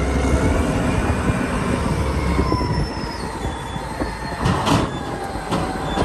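Caterpillar 992C wheel loader working under load: a deep diesel rumble with thin high whines that slowly shift in pitch, as its bucket tips earth into a truck trailer. There is a short, louder rush of noise about four and a half seconds in.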